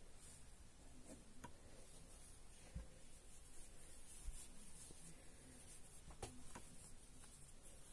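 Faint rubbing and rustling of polyester fiberfill stuffing and plush fabric being handled by hand, with a few soft taps.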